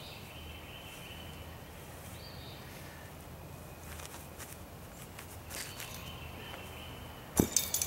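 Feet scuffing and stepping on grass as a thrower spins through a two-spin Highland Games weight-for-distance throw, with birds chirping faintly. A single sharp thud, the loudest sound, comes about seven seconds in.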